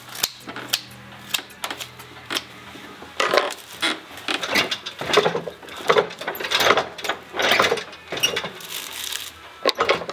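Broomcorn straw rustling and scraping as a broom is wound on a broom-winding machine. A few sharp clicks come first, then from about three seconds in a run of loud, irregular rustles about once or twice a second.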